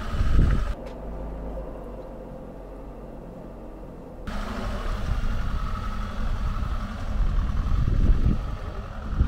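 Motorhome engine and road noise while driving: a steady low rumble whose upper hiss drops out abruptly about a second in and comes back about four seconds in.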